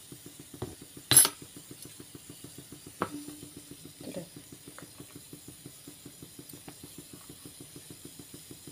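A steel spoon clinking against a plastic tub as it scoops thick yogurt salad: one sharp clink about a second in, then softer taps. A fast, even low pulsing runs underneath.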